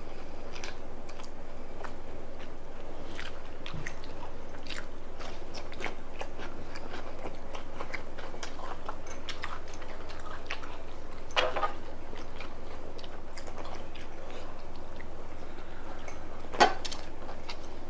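People chewing and biting food close to the microphone, with many small mouth clicks and crunches over a steady low hum. Two louder clicks stand out, one about two-thirds through and one near the end.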